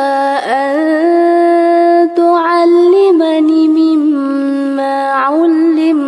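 A woman reciting the Qur'an in a melodic chant, holding long notes with ornamented turns, with a brief pause for breath about two seconds in.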